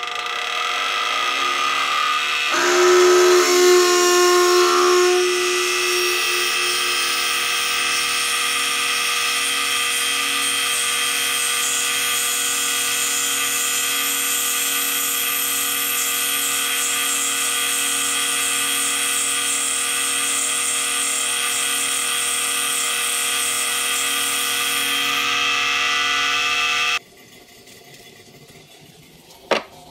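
Vevor 7x12 mini lathe running with a steady motor-and-gear whine while a large twist drill in the tailstock chuck bores into the spinning workpiece. The cutting sound is loudest for a few seconds near the start. The lathe shuts off abruptly near the end, followed by a single click.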